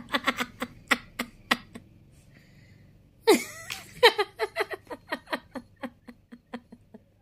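A woman laughing in quick repeated bursts, in two bouts: a short one at the start, and a longer one from about three seconds in that starts loud and trails off.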